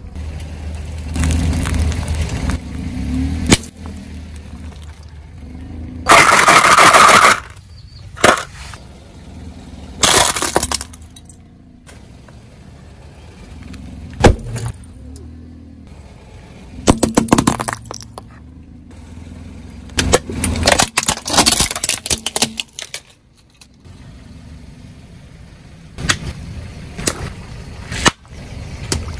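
A car tyre rolling slowly over objects on asphalt and crushing them one after another, among them water-filled balloons and rubber gloves. There is a series of sudden loud bursts, cracks and splashes over a low tyre and engine rumble. The loudest burst comes about six seconds in.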